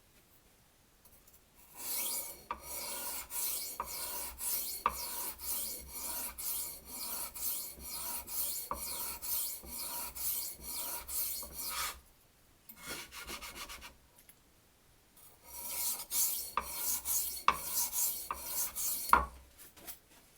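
Knife blade drawn back and forth across a sharpening stone in steady scraping strokes, about two a second, in two runs with a short break between them.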